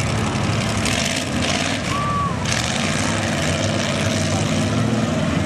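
Dodge mega mud truck's engine running steadily under load as the truck drives through a deep mud hole. A rushing hiss sits over the engine for the first two seconds or so.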